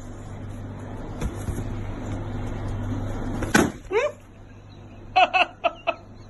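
Confetti-filled balloon bursting with a single sharp pop about three and a half seconds in as a small dog noses and bites at it, followed by a few short cries.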